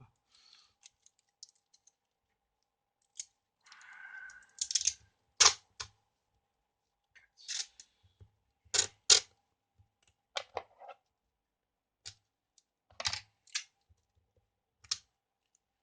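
Clear sticky tape being pulled off the roll, torn and handled, used in place of electrical tape to insulate freshly soldered cable joints. It comes as irregular sharp crackles and clicks, with a longer rasping pull about four seconds in.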